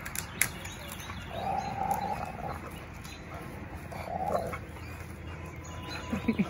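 Dogs growling as they tug at and shake a pine branch: a longer growl about a second in and a shorter one around four seconds, over a steady rustle of the needles and twigs, with a few twig snaps near the start.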